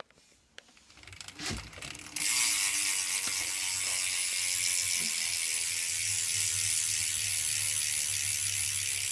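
Unsealed DK rear hub on a BMX bike with a 9-tooth driver, freewheeling as the rear wheel is spun: its pawls click so fast they make a steady buzz, pretty loud. It starts about two seconds in, after a few knocks as the wheel is handled.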